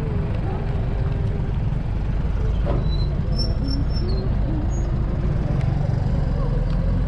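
Steady low engine rumble, with muffled voices over it and a few short high chirps around the middle.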